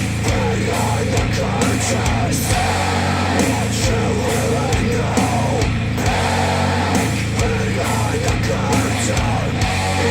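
Heavy rock music played through Wharfedale Denton 80th bookshelf speakers driven by a Sony STR-DH190 amplifier, loud and continuous with sustained bass notes.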